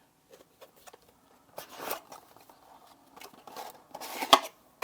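Packaging being handled: light rustling and scraping of the cardboard box and plastic, with a sharp click near the end.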